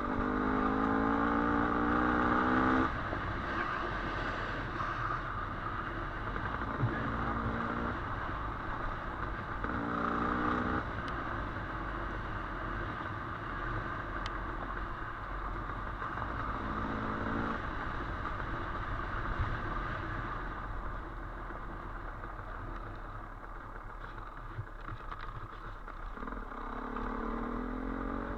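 Dirt bike engine on a trail ride, revving up in bursts several times over a steady engine drone, with the clatter and rustle of the bike moving over rough ground.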